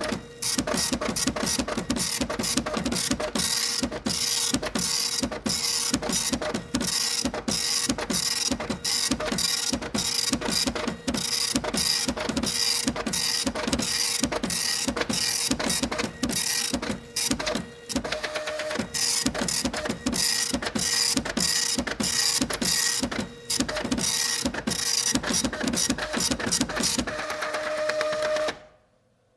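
Typing on a computer keyboard, a fast, unbroken run of key clicks at several strokes a second over a faint steady hum, stopping abruptly shortly before the end.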